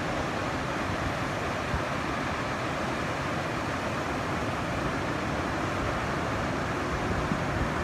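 Ocean surf breaking and washing steadily, a constant rushing noise, with wind buffeting the microphone.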